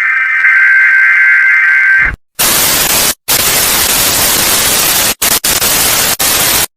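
A steady electronic alert tone, several high pitches held together, for about two seconds, then cut off. After a short gap, loud static hiss, broken by a few brief dropouts, stops abruptly near the end.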